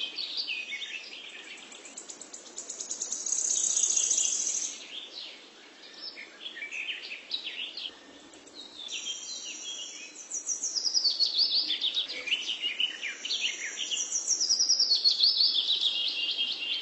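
Birds chirping and singing, with a high trill about four seconds in and runs of falling notes in the second half.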